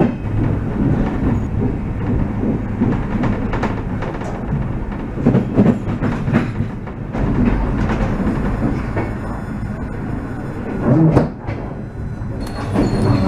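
Train running over the tracks and switches: a steady low rumble with irregular clicks and knocks as the wheels cross rail joints and points.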